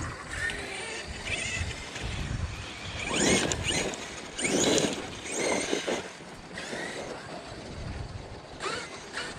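Losi DBXLE electric RC buggy driving: its electric motor whines up in pitch in short throttle bursts about three and four and a half seconds in.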